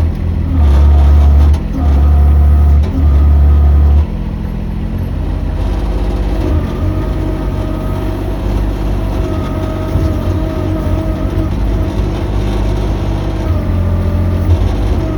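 Mini excavator's engine running under load. A heavy, loud rumble comes in pulses for about four seconds, then settles to a steadier hum with a whine that comes and goes.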